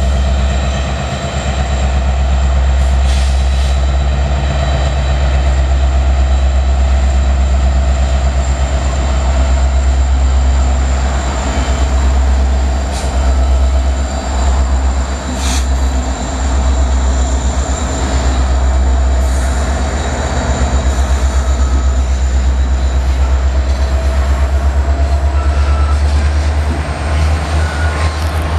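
A freight train's diesel locomotives pass, then a long line of loaded tank cars rolls by with a steady, loud low rumble. A thin, steady high-pitched wheel squeal runs over it, with a few sharp clacks from the wheels on the rail.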